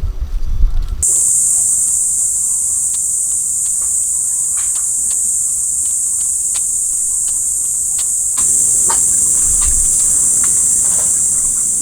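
Steady, high-pitched insect chorus that starts abruptly about a second in, with scattered short clicks and chirps over it.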